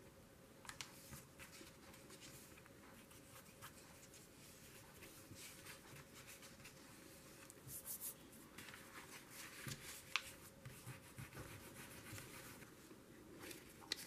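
Faint rustle and light taps of paper handling as a paper die cut is pressed down onto a small journal's cover and its pages are moved, with a few sharper clicks.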